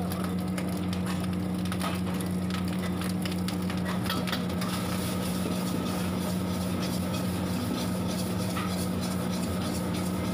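Steel ladle and spatula scraping and clinking against a wok as rice is stir-fried, over a steady low mechanical hum.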